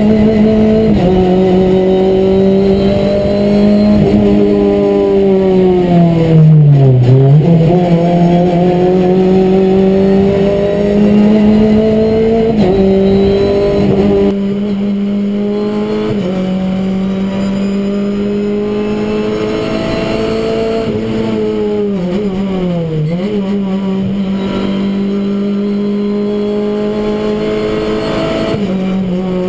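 Renault Clio Cup race car's four-cylinder engine at high revs, heard from inside the cockpit, with small steps in pitch at the gear changes. Twice, about a quarter of the way in and again about three quarters of the way in, the note drops steeply and climbs back, as the car brakes and downshifts for a corner. About halfway through, the sound gets a little quieter and loses some of its low end.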